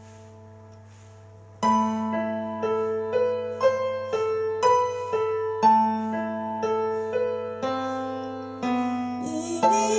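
Instrumental interlude of a slow ballad played on a keyboard with a piano sound. After a soft, fading first second and a half, single melody notes are struck about twice a second over a steady low bass tone.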